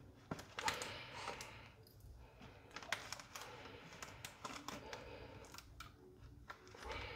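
Clear plastic fish bag crinkling and rustling as fingers work at its tied knot, with a run of small irregular clicks.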